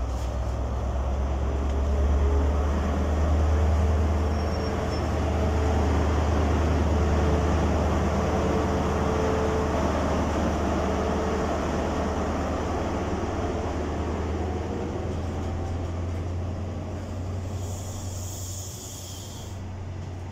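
East Midlands Railway HST with a Class 43 diesel power car running along the platform: a steady low engine drone over the rumble of the coaches, slowly fading. A short hiss comes near the end.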